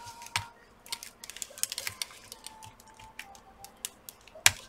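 Light, irregular clicks and scrapes of gloved fingers working a laptop's battery cable connector loose from its socket on the motherboard, with one sharper click near the end.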